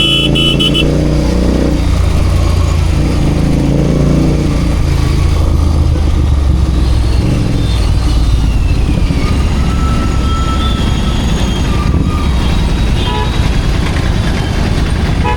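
Royal Enfield Continental GT 650's 648 cc parallel-twin engine running through city traffic, its pitch rising and falling with the throttle, over the noise of surrounding vehicles. A short horn toot sounds at the very start.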